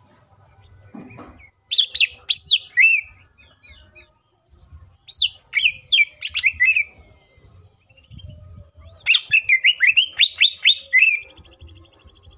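Male green leafbird (cucak ijo) singing a varied, imitation-filled song in three bursts of quick, sharp, downward-sweeping whistled notes, each burst lasting one to two seconds with short pauses between.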